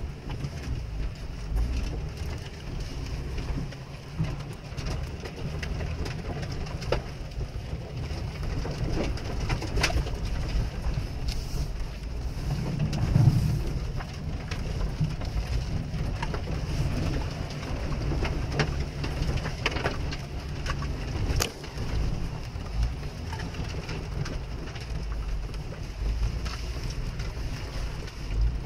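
A Jeep's engine and drivetrain rumbling low, heard from inside the cabin as it drives slowly through wet mud, with scattered clicks and knocks. The rumble swells once, about halfway through.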